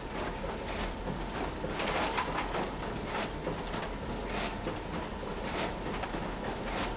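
Slow, irregular typing: single key clicks, roughly one to two a second.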